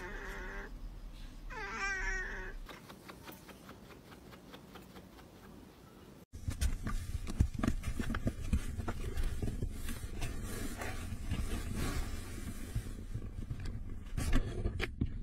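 A domestic cat meows twice, about two seconds apart, each call short with a wavering pitch. Later comes a stretch of close rustling with many small clicks.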